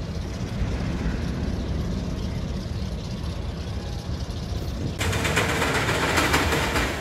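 Steel roller-coaster train running on its track. A low rumble gives way, about five seconds in, to a louder, denser rattling hiss as a train rolls along the track close by.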